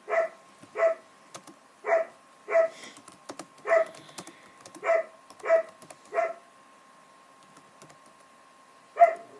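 A dog barking: a run of eight short barks over about six seconds, a pause, then one more bark near the end. Soft computer keyboard typing clicks between the barks.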